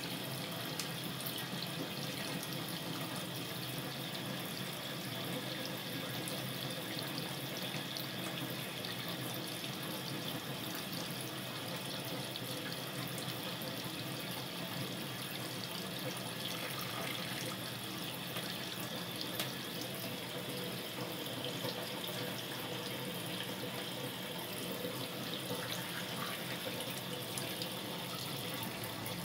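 Tap water running steadily from a faucet into a stainless steel sink.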